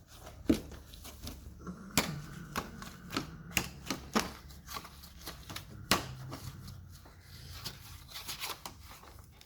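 Irregular sharp clicks and knocks of hands-on handling work, the loudest about half a second, two seconds and six seconds in, over a low steady hum.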